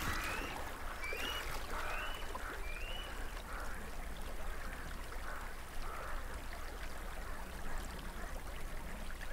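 Shallow river water running and trickling steadily, with four short high chirps in the first three seconds.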